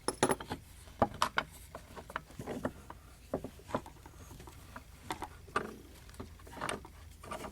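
Handling of an old lever lock: scattered small clicks, taps and light rubbing of metal parts at an irregular pace.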